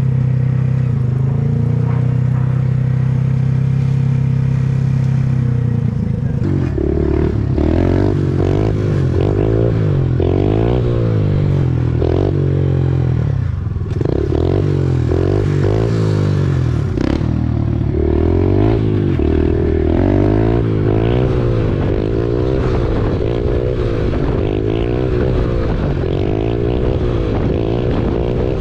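Dirt-bike engine idling steadily, then from about six seconds in running with the throttle opened and closed over and over, its pitch rising and falling repeatedly.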